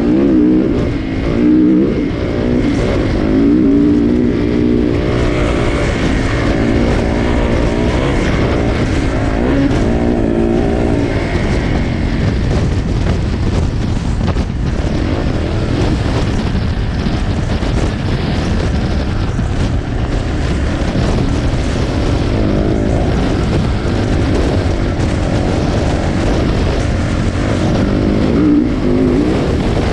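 2016 Yamaha YZ450F's 450cc single-cylinder four-stroke engine running under way on a dirt trail, its pitch rising and falling as the throttle opens and closes, over a steady rushing noise.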